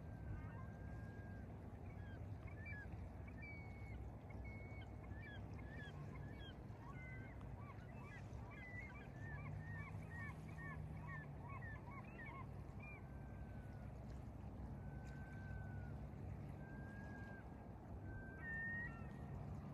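A flock of birds calling: a quick run of many short calls for several seconds, then a few longer drawn-out calls near the end, over a low steady wash of lake water.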